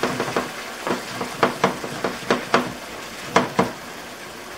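Pork chops frying in hot oil in a pan: a steady sizzle with sharp crackles every half second or so, dying down near the end.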